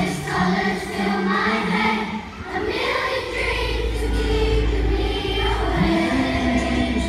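Children's choir singing long held notes together, with a steady low bass coming in underneath about three seconds in.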